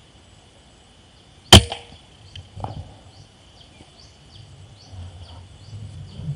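A single sharp air-rifle shot about a second and a half in, the shot that hits the squirrel, followed by a fainter knock about a second later. A steady high insect drone runs underneath, with a string of short high chirps in the second half.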